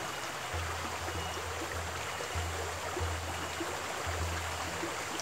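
Mountain creek water flowing steadily, a constant rushing hiss.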